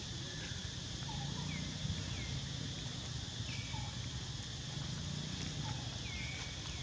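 Outdoor ambience: a steady high insect drone over a low rumble, with short falling chirps every second or so from small animals, likely birds.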